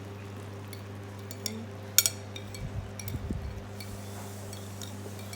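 Light clinks and a sharp knock about two seconds in, with low bumping a second later, as dishes and utensils are handled, over a steady low hum.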